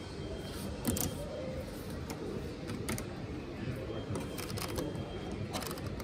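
Scattered sharp clicks and knocks from handling a display washing machine, with a quick run of clicks near the end as its program selector dial is turned. A low steady store background murmur sits underneath.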